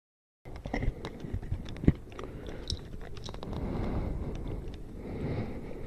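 Handling noise close to the microphone: irregular clicks, knocks and rustling, with one sharper knock about two seconds in.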